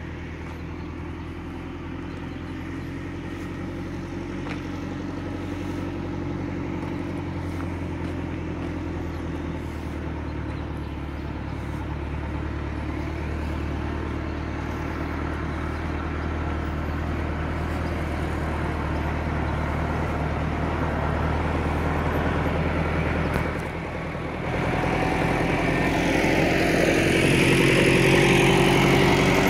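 A farm tractor's diesel engine running steadily, growing gradually louder. It drops briefly about three quarters of the way through, then comes back louder and harsher near the end.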